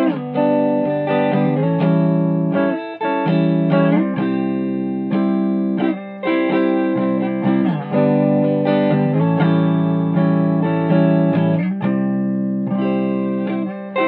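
Agile AS-1000 electric guitar played through a 1965 Ampeg amp on the rhythm-position pickup with volume and tone fully up, strumming ringing chords of a song, struck again every second or two.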